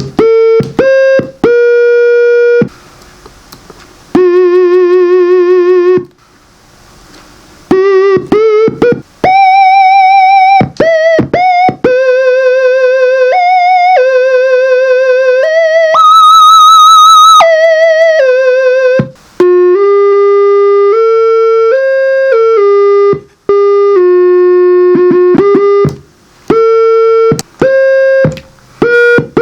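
Slime-A-Sizer analog synthesizer playing a single-voice electronic tone that steps between held notes, some with a fast wobble in pitch, and a few quick runs of short notes. Two stretches of hiss break it up, and one high note stands out midway.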